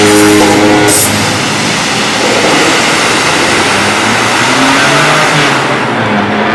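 Bellagio fountain show music ends about a second in, followed by a loud steady rush of water as the final burst of fountain jets falls back into the lake. The hiss thins near the end.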